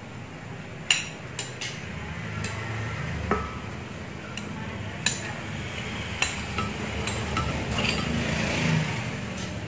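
Frozen banana slices dropping from a bowl into a glass blender jar: a dozen or so sharp, irregular clinks and knocks against the glass, with a short scraping rustle near the end.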